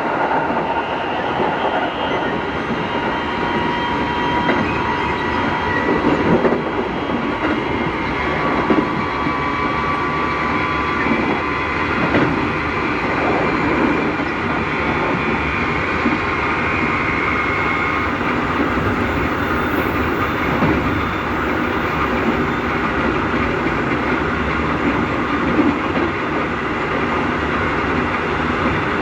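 Keikyu 1000-series electric train car running along the line, heard from inside the car: steady rolling noise and wheel clatter with a faint whine from its Mitsubishi IGBT-VVVF traction motors. This car's motors are known for abnormally loud noise, which the uploader believes comes from motors transferred from set 1105.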